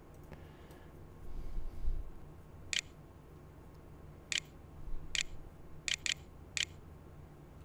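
Computer mouse clicking on an on-screen keyboard to type text: six sharp clicks at uneven intervals, two of them in quick succession, from about three seconds in. A low dull bump about two seconds in, over a faint steady hum.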